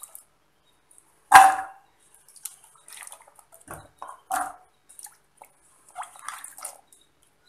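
Raw potato pieces, wet from washing, tipped into an empty ceramic-coated pan. There is one loud clattering drop about a second in, then smaller scattered taps and rattles as more pieces land.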